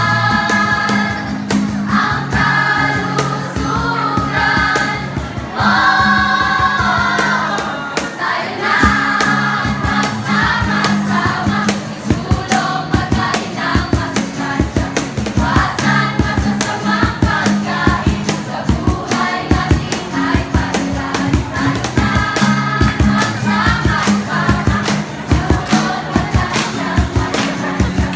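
A group of voices singing a jingle together in chorus over instrumental accompaniment with sustained low notes. A quick, steady percussive beat joins about nine seconds in and carries on under the singing.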